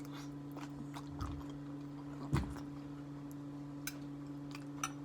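Close-miked chewing and mouth sounds: scattered small clicks and a couple of soft low thumps, over a steady low hum.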